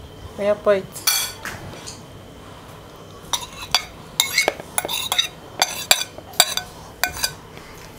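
Metal spoon scraping and clinking against a ceramic bowl as chopped shrimp are scraped out of it. A quick run of sharp, ringing clinks starts about three seconds in and lasts about four seconds.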